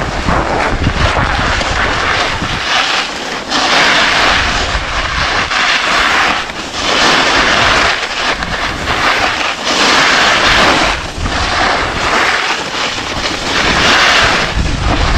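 Skis hissing and scraping over groomed snow during a run downhill, with wind rushing over the microphone. The hiss swells every two or three seconds as the skis turn.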